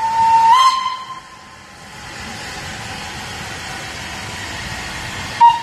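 Steam locomotive whistle: a long note that lifts slightly in pitch and stops about half a second in. Then the steady running noise of the train as it pulls past, and a second short, loud whistle toot near the end.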